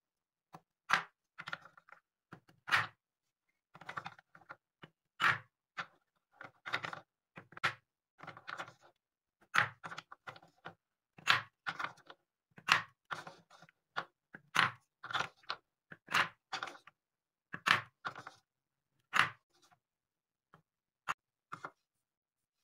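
Wooden balls clacking against a wooden scoop, bowl and cups, with short scrapes as the scoop digs among the balls in the bowl. Separate knocks come about one a second with gaps between, thinning to a few faint clicks near the end.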